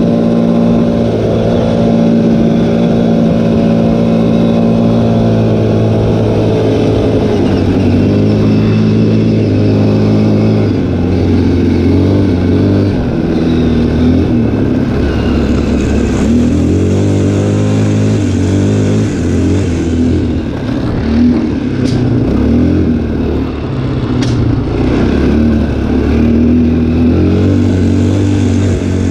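ATV engine running under way, heard from the rider's seat, its pitch stepping down and up several times as the throttle changes. Two short sharp clicks come about two-thirds of the way through.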